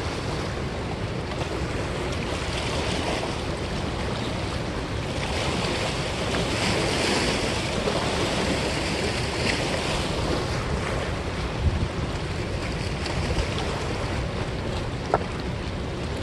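Wind rushing over the microphone with river water lapping against the rocky bank, a steady wash that swells a little midway, with a couple of faint clicks near the end.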